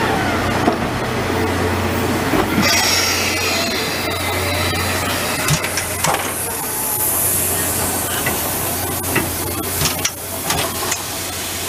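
C57 steam locomotive and its coaches rolling slowly past along a station platform, over a steady low hum. About six seconds in, as the locomotive comes by, a hiss of steam starts, and a few sharp clanks follow near the end.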